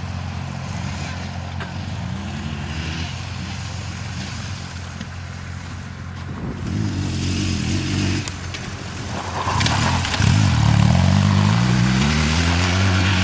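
BMW R 1200 GS boxer-twin engine pulling on loose dirt. It runs steady at first, revs up harder about halfway through, then climbs in pitch again and is loudest near the end. In the second half there is a hiss of the rear tyre spinning and throwing dirt.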